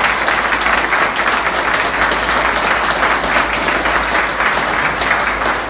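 A roomful of people applauding: dense, steady hand clapping.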